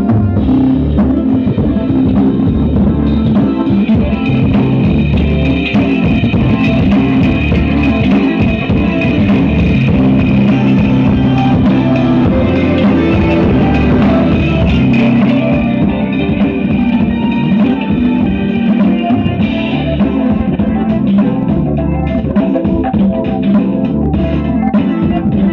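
Loud rock-style music with guitar, bass and drums played through a 300-watt transistor amplifier board driving dual woofers, with heavy bass.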